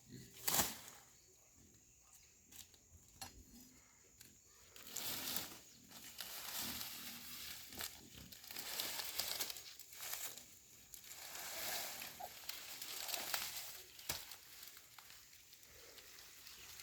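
Dry corn plant leaves and stalks rustling and crackling in repeated swishes as the plants are pulled up and handled, after one sharp snap about half a second in.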